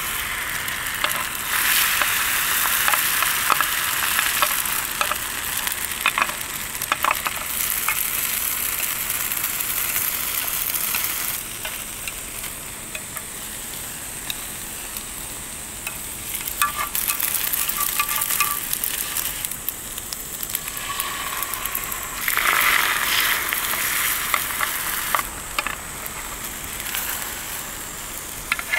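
Food frying, a continuous sizzle with scattered crackles. It swells louder for several seconds near the start and again about three quarters of the way through.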